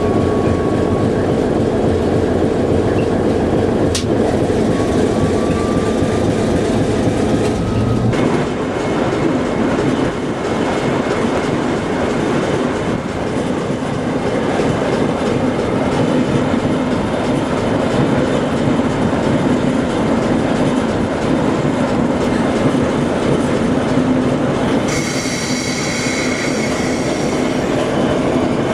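Diesel-hauled passenger train rolling steadily along the track. A high wheel squeal sets in near the end and lasts a few seconds.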